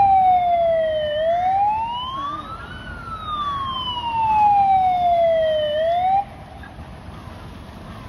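SCDF emergency vehicle siren sounding: a slow wail that falls over about three seconds, rises, falls again, then cuts off suddenly about six seconds in.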